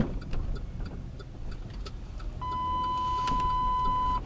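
Steady low rumble inside a vehicle's cabin. About two and a half seconds in, a single steady electronic beep from the two-way radio sounds for about two seconds, then cuts off.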